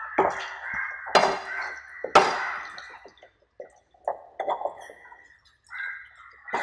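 Wooden spatula scraping and stirring soya chunks through a thick oily masala in a non-stick frying pan. There are three strong scrapes about a second apart, then lighter, quicker strokes.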